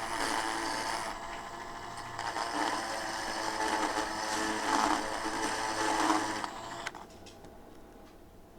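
Dremel rotary tool running and grinding into the die-cast metal base of a toy car, opening up the channels where the split axles are crimped. It stops suddenly about seven seconds in, leaving a few faint clicks.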